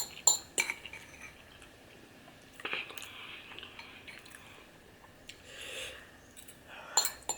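A person chewing a mouthful of spicy ramen noodles, with a few sharp clicks near the start and again near the end.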